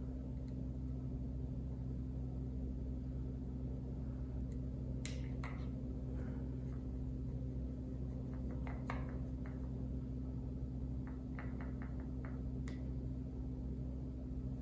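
Steady low hum with faint scattered ticks and clicks of a paintbrush stirring and tapping in a plastic paint palette well while black paint is mixed into a wash. A quick run of about five ticks comes a little after the middle.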